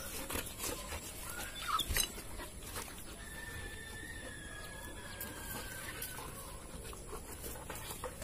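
Two golden retrievers digging a hole in dry garden soil, their paws scraping and scratching at the dirt in scattered strokes. A faint thin whine is held for a few seconds in the middle.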